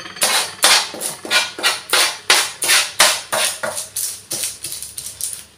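Metal spoon scraping repeatedly over a baked sheet of crisp caramelised almond florentine on baking paper, in quick even strokes about three a second.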